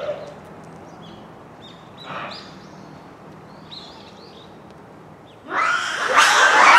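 A troop of Japanese macaques calling: scattered short high calls, then about five and a half seconds in a loud, harsh scream that runs on to the end.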